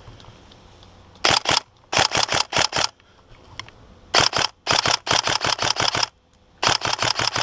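Custom Tokyo Marui Scar-L Next Gen airsoft electric rifle firing five short bursts of rapid, sharp clacking shots, about eight a second.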